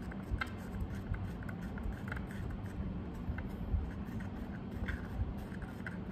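Plastic spoon stirring paint in a plastic palette well: faint, irregular scraping and light tapping clicks over a steady low hum.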